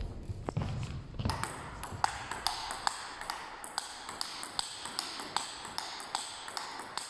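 Table tennis rally: the celluloid ball clicks off the bats and the table in a quick, even rhythm of about two to three hits a second, starting about a second in. One player blocks on the backhand with a penhold short-pips bat.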